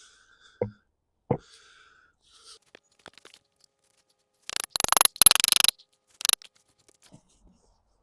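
A wooden handle being fitted into a steel sledgehammer head: two dull knocks, then about a second of rapid scraping and one short scrape near the end.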